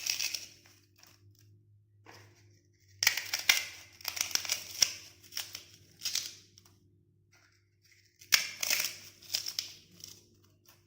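Dry puffed rice and crunchy boti snack sticks crackling and rustling in three bursts as they are added and handled in a bowl.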